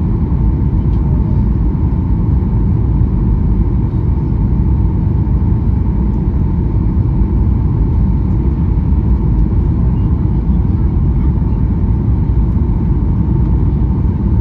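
Cabin noise in a Boeing 737-800 on final approach: a steady low roar from its CFM56-7B engines and the air rushing past the wing, with a faint steady high tone above it.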